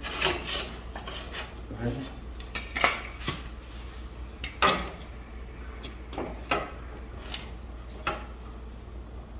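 Irregular metallic clinks and knocks of hardware and tools being handled while a locking caster is fitted into the square-tubing leg of a steel plasma table.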